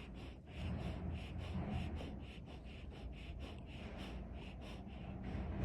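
An animal's rapid, rhythmic breathing, about four breaths a second, over a steady low rumble.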